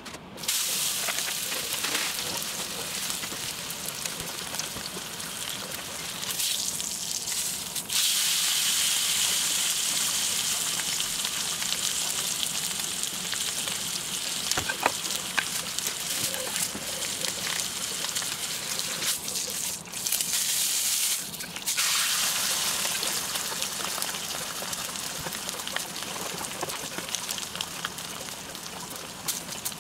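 A thick dry-aged bone-in steak sizzling in a hot stainless steel frying pan as it sears in its own fat. The sizzle starts abruptly as the meat goes in, gets louder about eight seconds in, and briefly dies down twice around twenty seconds before picking up again.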